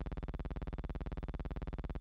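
Steady low electrical buzz with a fast, even flutter, unchanging throughout: hum on the soundtrack rather than any sound from the scene.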